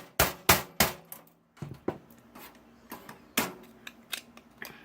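Sharp knocks and clicks of hard metal and plastic: a quick run of about three a second in the first second, then a pause and a few scattered single clicks. An aluminum heatsink is being worked off a computer circuit board's plastic retaining pegs.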